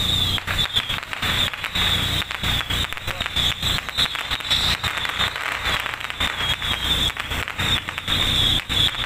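A string of firecrackers going off: rapid, irregular pops packed closely together and continuing without a break.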